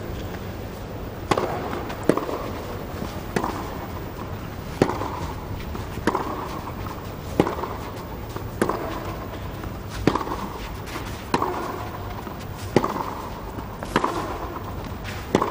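Tennis rally: racket strings striking the ball in turn, a dozen or so crisp hits about one and a third seconds apart over a quiet crowd hum.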